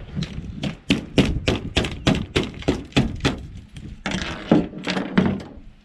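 A knife knocking repeatedly on kina (sea urchin) shells to crack them open, sharp hard strikes at about three a second.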